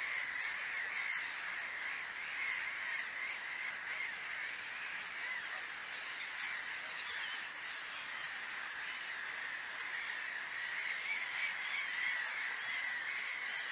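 A dense, unbroken chorus of harsh animal calls, wavering around one pitch, with a few faint ticks.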